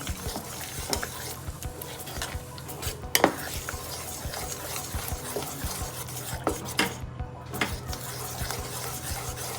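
A spoon stirring thick fermented pearl millet (bajra) dosa batter in a container, with soft squelching and scraping and an occasional knock of the spoon against the side.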